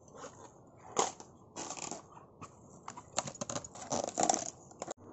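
Fibrous banana stem sheaths crackling and crunching as they are handled and pulled apart, in irregular bursts.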